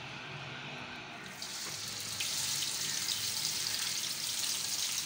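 Sliced onions dropped into hot oil in a karahi start a steady frying sizzle about a second and a half in, which grows louder and then holds.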